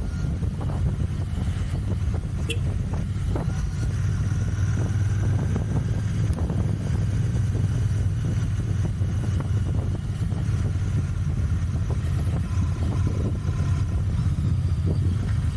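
Royal Enfield Continental GT 650's 648 cc parallel-twin engine running through its stock exhausts while riding, a steady low exhaust note holding an even speed.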